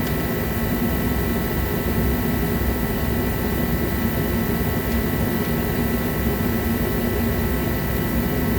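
Forced-air garage heater running steadily: a loud, even rush of air with a steady high whine over it.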